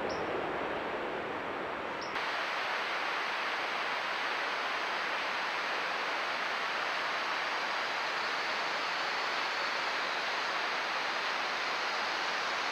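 Steady, even hiss of rainforest ambience as picked up by a trail camera's microphone, with no single call or footstep standing out. The hiss gets slightly louder about two seconds in.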